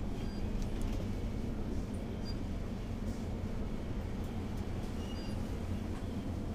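Steady low rumble of supermarket ambience, with a few faint short high beeps.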